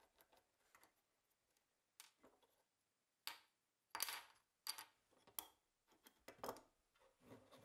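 Scattered light clicks and knocks as a Colt Lightning revolver's grip panel and steel frame are handled and set down on a wooden workbench, the loudest clatter about four seconds in.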